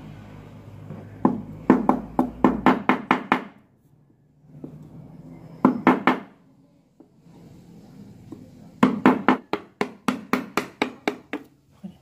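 Hammer striking a wood-handled chisel, cutting a shallow recess into a mahogany door jamb: three runs of quick sharp blows, about four a second, with short pauses between runs.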